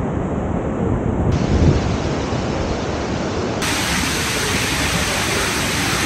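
Waterfall in full monsoon flow, rushing steadily, with wind buffeting the microphone. The hiss turns brighter about three and a half seconds in.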